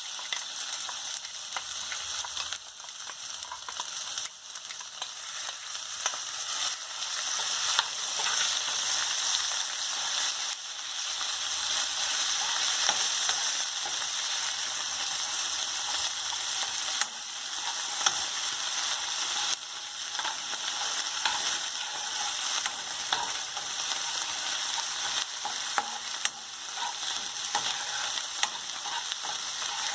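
Ground onion-coconut masala paste frying in hot oil in a pan, sizzling steadily, with a spoon stirring it and clicking against the pan now and then.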